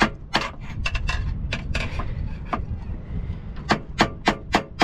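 Sharp metal-on-metal knocks as a pry bar works the mast's gooseneck fitting loose after its rivets were knocked out: scattered at first, then a quick run of about three knocks a second near the end.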